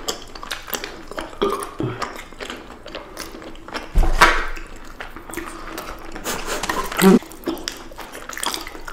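Close-miked ASMR eating sounds: wet, sticky mouth noises and small clicks of biting and chewing glazed balls off a skewer, with one louder sudden sound about four seconds in.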